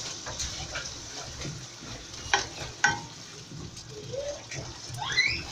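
A spoon stirring soup in a metal pot on the stove, clinking against the pot a few times, over a steady sizzle from the cooking soup.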